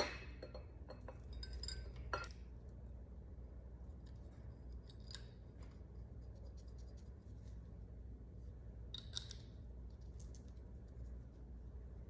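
Light metallic clicks and scrapes as an oiled camshaft is eased by hand through the cam bearings of a 5.3 V8 short block, with a cluster of clinks in the first couple of seconds and a few more light scrapes later on, over a low steady hum.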